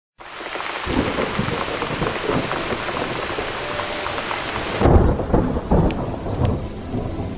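Heavy rain falling with rumbling thunder, the loudest roll of thunder about five seconds in.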